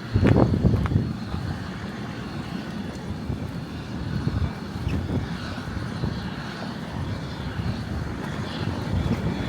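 Outdoor city ambience: a steady low rumble with no clear pitch, and a louder low buffeting burst about half a second in.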